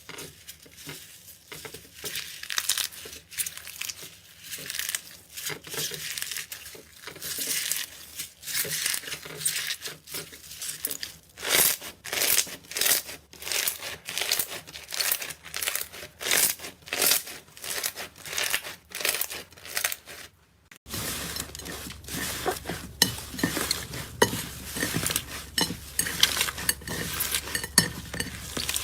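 Slime being squeezed and poked by hand, giving repeated crackly, crinkling squelches roughly once a second. About two-thirds of the way through the sound changes abruptly to a different slime with denser, sharper clicking crunches.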